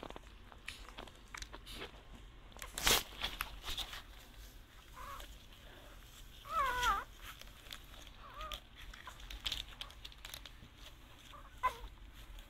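Newborn Rhodesian Ridgeback puppies nursing, giving a few brief high squeaks; the clearest comes about six and a half seconds in. Small clicks and rustles of the puppies shuffling at the teats run under the squeaks, and a sharp knock comes about three seconds in.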